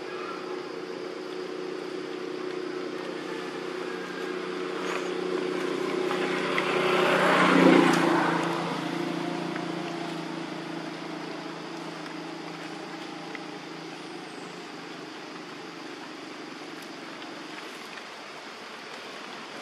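A motor vehicle passing: a steady engine hum that grows louder to a peak about eight seconds in, then slowly fades away.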